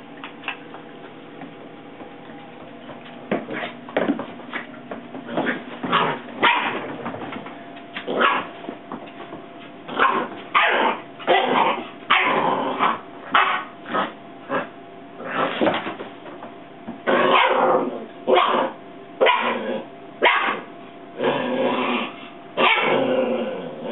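Eight-week-old puppy play-barking: a long string of short yaps and growls that start a few seconds in and come thicker and louder from about halfway on.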